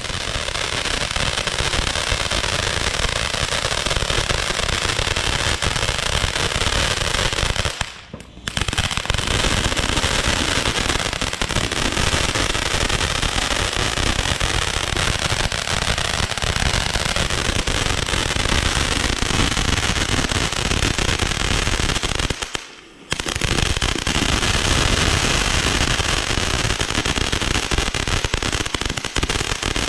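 Fireworks finale: a dense, continuous barrage of bangs and crackling, dropping away briefly twice.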